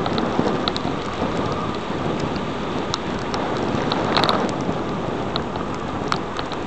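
Steady rushing noise of rain and wind on a camera riding down a wet road on a bicycle, with a low rumble underneath and raindrops ticking against the camera. A louder clatter comes about four seconds in.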